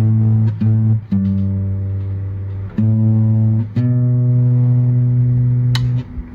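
Instrumental background music with a guitar sound: sustained low plucked notes that change pitch every half second to a second and a half.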